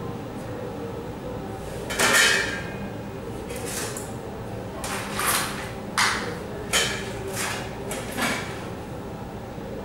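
A run of clinks and knocks as small hard objects are handled and set down, irregularly spaced, the loudest about two seconds in, a few with a short ring.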